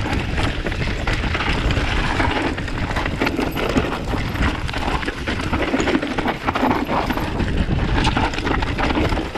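Enduro mountain bike descending a rocky singletrack: tyres crunching over loose stones and the bike rattling with many quick knocks over the bumps, over a low rumble of wind on the microphone.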